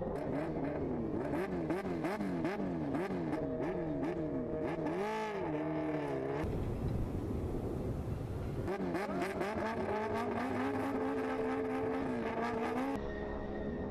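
Racing car engine revved up and down again and again, about twice a second. After a short burst of noise an engine climbs in pitch and holds high revs.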